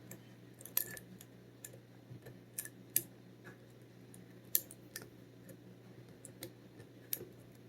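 Irregular light metallic clicks and ticks of a dimple pick working the pins inside a Kenaurd five-pin pin-in-pin dimple lock, with a few sharper clicks standing out.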